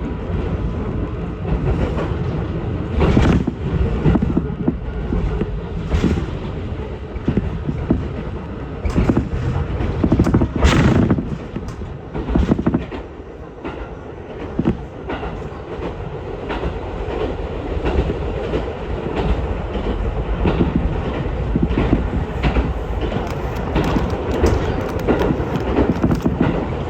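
Electric train running along the line, heard from inside the car: a steady rumble of wheels on rail with irregular clacks and knocks from the track, one of them stronger about ten seconds in.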